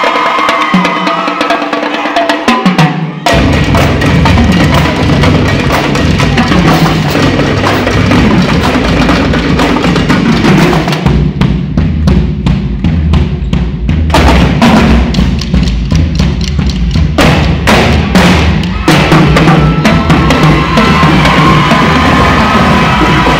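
Background music with heavy drums and a bass line; the kick drum and bass come in about three seconds in.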